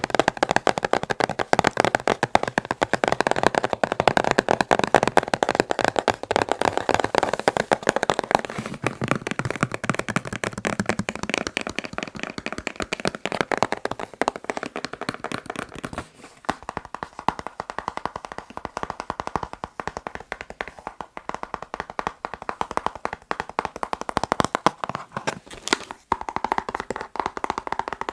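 Fast, continuous fingertip tapping on boxes. The tone shifts partway through, with a short break about sixteen seconds in, as the tapping changes.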